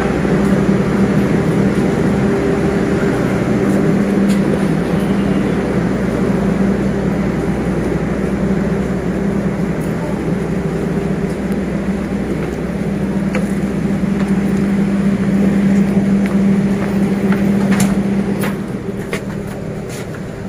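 Steady drone of a stationary Jayakarta Premium passenger train standing at the platform: an even engine-like hum with a held pitched tone. A few sharp clicks and knocks come near the end, and the drone grows a little quieter.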